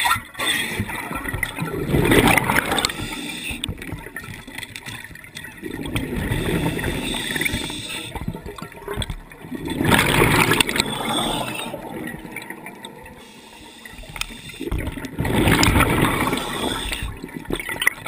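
Scuba diver breathing through a regulator underwater: exhaled breaths burst out as gurgling rushes of bubbles every few seconds, each lasting a second or two, with quieter gaps between breaths.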